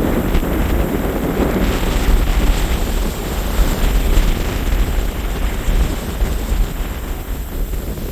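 Strong wind buffeting the microphone in loud, uneven gusts, with choppy surf beneath it.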